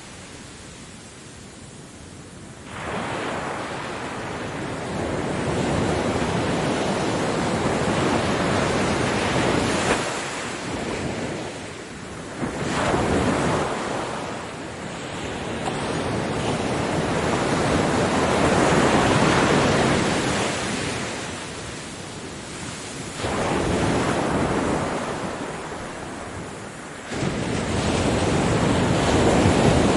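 Ocean waves breaking on a beach and washing up the shore. The surf swells sharply several times as waves break, and ebbs between them.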